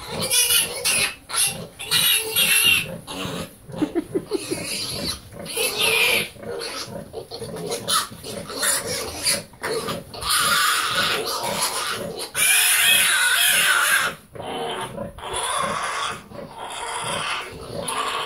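Red Wattle piglets squealing and squeaking as they jostle at a sow's teats while she nurses, with short grunts in between. The longest, loudest squealing comes about ten seconds in and again between about twelve and fourteen seconds.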